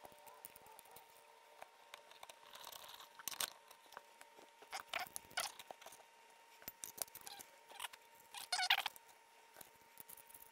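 Faint scattered clicks, knocks and rattles of metal camera car-mount parts (grip arms, grip heads and suction cups) being handled and fitted together on a table, with a louder cluster of rattles near the end. A thin steady hum sits beneath.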